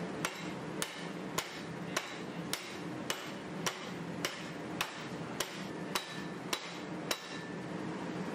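Hammer blows on a red-hot 1095 steel knife blank clamped upright in a vise, upsetting the metal at the notch to form an integral guard. Thirteen evenly spaced, sharp, ringing strikes come a little under two a second and stop about seven seconds in, over a steady low hum.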